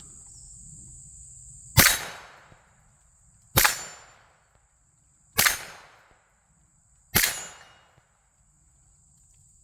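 Four suppressed shots from a CMMG Banshee 10mm with a Dead Air Ghost suppressor, firing standard 180-grain full-metal-jacket 10mm rounds (not subsonic). The shots are evenly spaced about two seconds apart, each a sharp report that trails off quickly.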